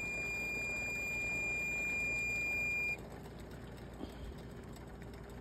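A steady, high-pitched electronic beep held for about three seconds, then cut off suddenly, like an appliance alarm or timer tone.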